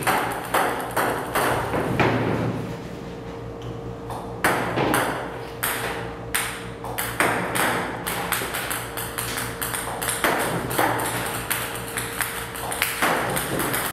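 Ping-pong balls from a table tennis robot clicking and bouncing on the table and net, a sharp knock every half second or less. A steady hum runs under much of it.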